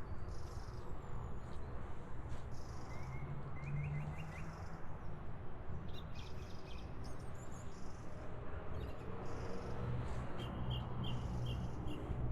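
Songbirds chirping outdoors over a steady low rumble: a quick run of rising chirps about a third of the way in, and a series of five or six evenly spaced high notes near the end.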